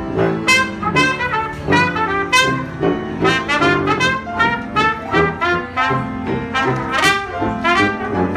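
Live jazz trio playing: a trumpet carries the melody over a tuba bass line and an upright piano.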